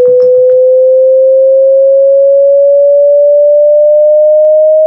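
A single loud electronic sine tone held and gliding slowly upward in pitch. The electronic music's beat under it stops about half a second in, leaving the tone alone.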